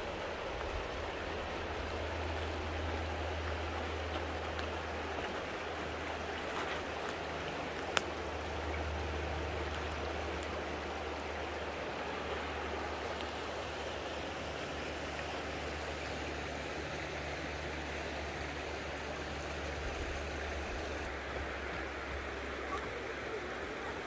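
Mountain river flowing over rocks: a steady, even rush of water with a low rumble underneath. A single sharp click about eight seconds in.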